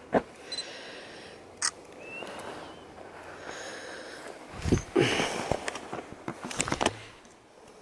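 Bumps and rustles of a handheld camera being moved, with footsteps on a gravel track about two-thirds of the way through.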